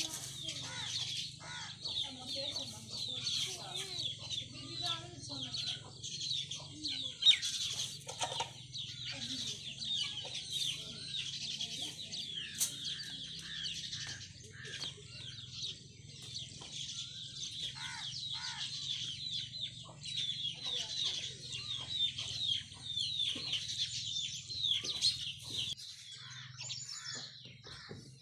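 Many small birds or chicks chirping together in a dense, continuous chatter of short, high, falling peeps that stops near the end, over a steady low hum. A single sharp knock about seven seconds in.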